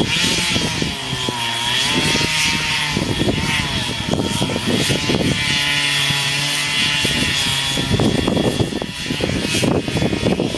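Large two-stroke chainsaw running at high revs under load while making the felling cut through a big tree trunk, its pitch dipping and recovering a few times as the bar bites into the wood.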